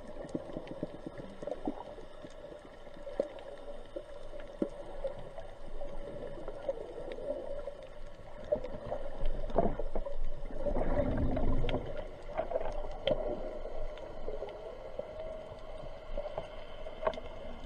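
Underwater sound: a steady hum with scattered clicks, and a louder rushing, rumbling burst around the middle.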